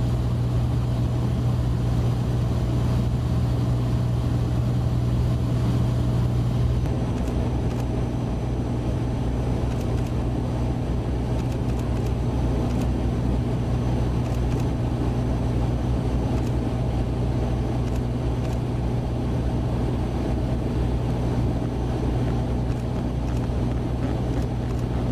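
An engine running steadily, a loud low drone with a constant hum.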